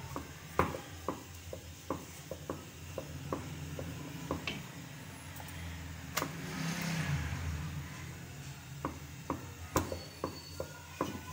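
Wooden rolling pin rolling and knocking on a wooden board as paratha dough is rolled out: a string of irregular sharp wooden knocks, two or three a second, with a brief scuffing rub partway through.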